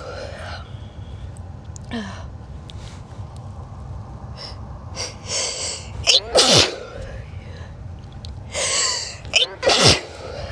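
A person sneezing twice, about six seconds in and again near the end. Each sneeze comes after a short build-up of gasping in-breaths, and each is a sharp, loud burst whose voice falls in pitch.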